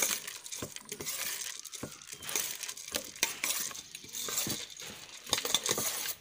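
Metal spoon stirring puffed rice mixed with chopped vegetables in a stainless steel bowl: a dry rustle of the grains with frequent irregular clinks and scrapes of spoon against steel.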